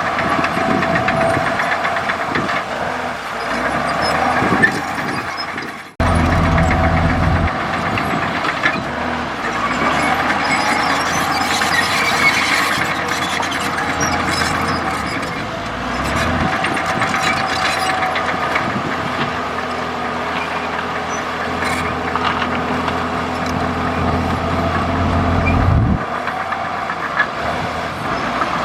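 Komatsu D65E bulldozer's diesel engine running steadily under work. The sound breaks off and comes back louder, with a deeper note, about six seconds in.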